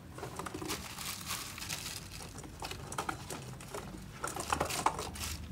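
Irregular rustling with small clicks and knocks of someone rummaging through belongings, searching for something.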